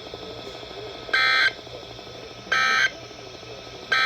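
Emergency Alert System end-of-message (EOM) data bursts over NOAA Weather Radio: three short, identical digital screeches about 1.4 seconds apart, the last coming near the end, marking the end of the alert.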